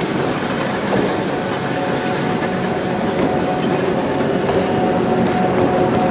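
Triple-headed EF63 electric locomotives rolling slowly past at close range: a steady electric hum of several pitched tones over wheel and running noise, with a few light clicks near the end.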